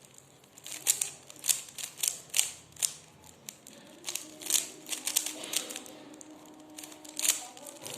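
A 3x3 Rubik's cube being turned by hand: quick plastic clicking and clacking of its layers in uneven flurries, with a short lull about six seconds in.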